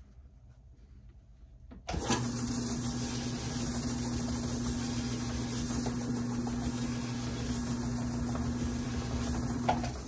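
Electric bowling ball spinner switched on about two seconds in, its motor running steadily with a constant hum and high hiss as the ball spins, then stopping near the end.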